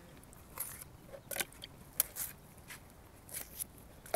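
Fresh white coconut meat being snapped into chunks by hand and dropped into a water-filled blender jar: a series of short, scattered snaps and small plops.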